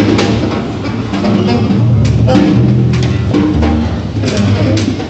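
Free improvised music on double bass, saxophone and a drum struck with sticks. Held low bass notes change every second or so under short saxophone tones, with scattered sharp drum knocks.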